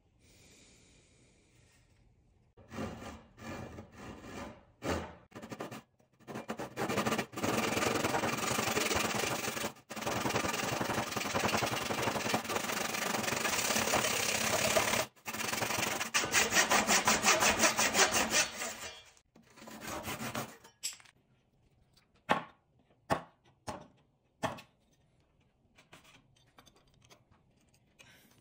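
Handsaw cutting across the end of a softwood post to form a rabbet. The back-and-forth strokes come in several runs with short pauses, and are fastest and loudest just before they stop. After that come a few short, separate scrapes and taps.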